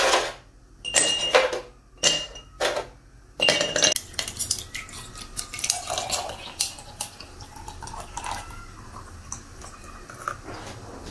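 Ice cubes dropped into a glass mason jar, several separate clinks with a ringing note over the first three seconds. Then apple juice is poured from a carton over the ice in a steady stream, with small clinks of ice shifting in the jar.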